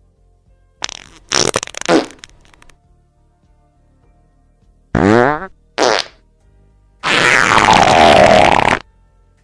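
A run of separate farts. About a second in comes a cluster of short sputtering ones. Around five seconds there is a pitched fart that bends in pitch, followed by a brief one. Near the end comes the loudest, a long noisy fart lasting almost two seconds.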